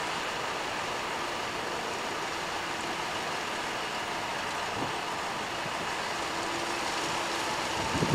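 Steady hiss with a low rumble underneath, and a couple of faint knocks, the loudest near the end.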